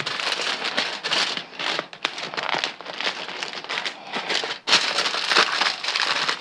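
Aluminum foil crinkling as a foil packet's sides are folded and tucked in by hand: an uneven run of crackles with a brief break about three-quarters of the way through.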